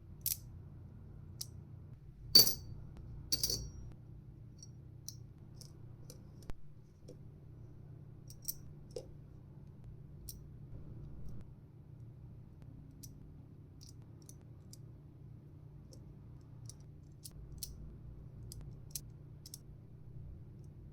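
Small sharp metal clicks and taps from handling a metal fidget spinner, scattered through, with two louder ringing clinks about two and a half and three and a half seconds in.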